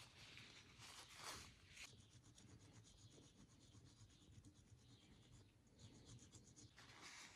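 Faint rubbing and rustling of a paper towel wiping a steel brake caliper guide pin, with a run of fine, rapid scratching in the middle.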